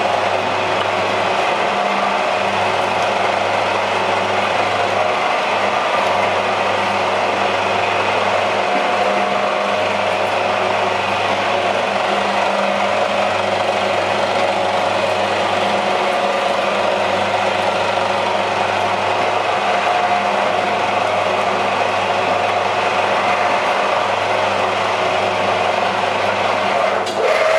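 Automatic dumpling-making machine running steadily: a continuous mechanical clatter of its forming mechanism over a steady motor hum.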